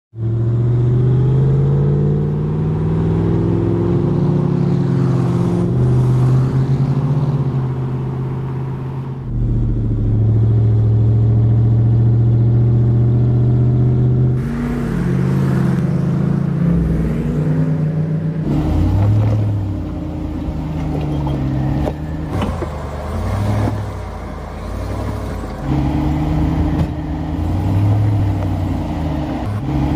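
Supercharged 6.2-litre V8 of a Ram 1500 TRX pickup running under load and revving, with the engine note changing abruptly several times and rising and falling in the second half.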